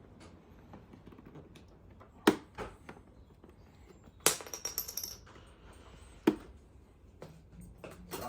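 Sharp clicks and knocks from tools and plastic parts while prying at a refrigerator's dispenser cover, with a short ringing metallic clatter about four seconds in.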